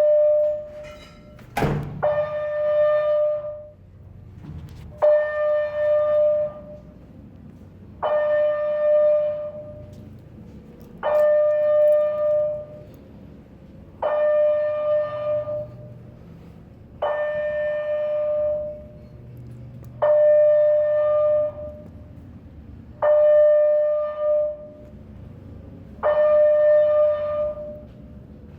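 Fire alarm horn on a Simplex 4100 system sounding the stage one alarm signal: a single steady horn tone lasting about a second and a half, repeating about every three seconds, roughly ten times. A sharp knock sounds once near the start.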